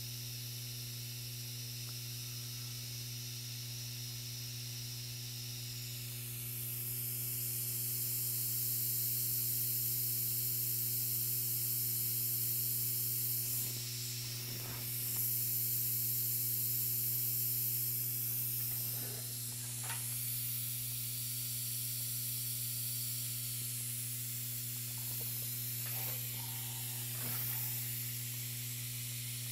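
Vibratory bowl feeder running: a steady low electromagnetic hum with overtones, under a high hiss that grows louder about six seconds in. A few faint knocks come and go.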